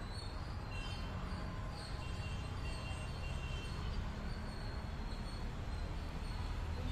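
Steady low outdoor rumble, with faint, brief high-pitched chirps here and there.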